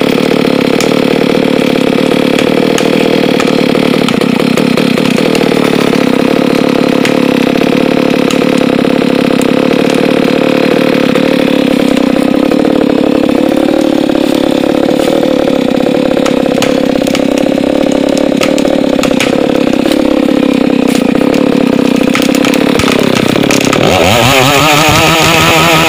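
Two-stroke chainsaw engine running loud and steady at high speed, its pitch wavering slightly under load. Near the end the pitch climbs sharply as the engine revs up.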